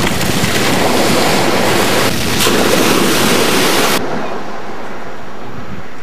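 Shallow surf washing and splashing close to the microphone as a loud, full rush of water noise. About four seconds in it cuts off abruptly to a duller, steady rush of wind buffeting the microphone over distant waves.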